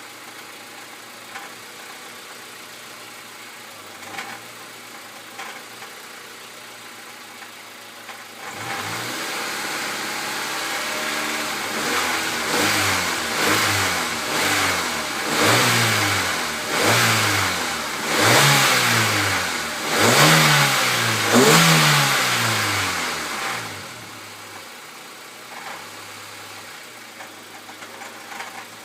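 Honda Civic D14 SOHC four-cylinder engine idling with a faint intermittent knock, then revved and blipped about seven times in quick succession before dropping back to idle near the end. The knocking rattle is one the owner hopes is coming from the alternator or its pulley.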